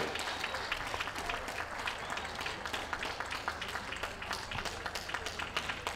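Audience applauding steadily, a dense patter of many hand claps.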